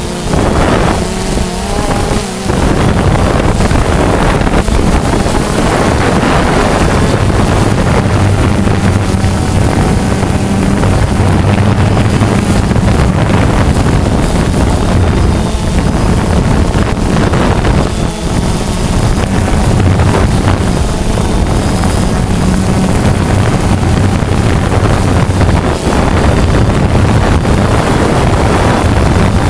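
Quadcopter's propellers and electric motors running steadily, a constant droning hum heard from on board the craft, with wind buffeting the microphone.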